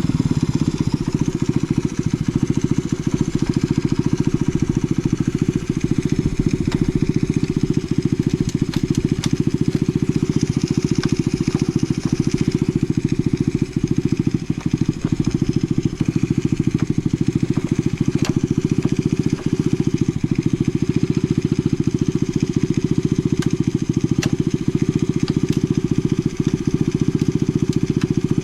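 Honda Jazz (AC09) minibike's 50 cc air-cooled four-stroke single idling steadily with even firing pulses, running with no abnormal noises.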